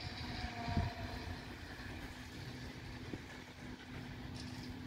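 Steady, low engine hum, like a diesel running at idle. There is a brief low thump about a second in.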